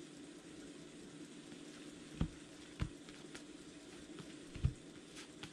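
Baseball cards being sorted by hand: a soft crackly rustle of card stock sliding across card stock, with three light taps as cards are set down.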